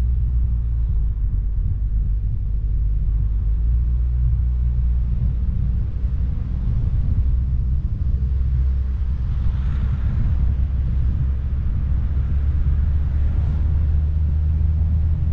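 Steady low rumble of a vehicle driving along, engine and road noise, with a brief rise in hiss about ten seconds in.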